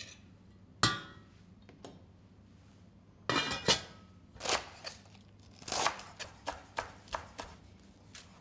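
A sharp metallic clink in the pot about a second in, then a glass saucepan lid set down with a ringing clatter. In the last few seconds a chef's knife chops parsley on a wooden board, about three chops a second.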